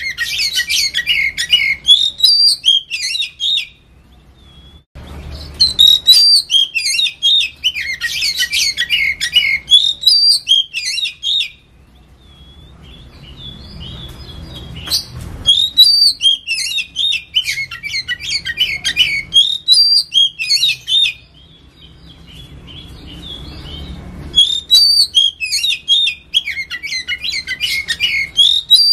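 Oriental magpie-robin (kacer) singing a loud, rapid string of varied high whistled and chattering notes. It comes in four phrases of several seconds each, with short pauses between them.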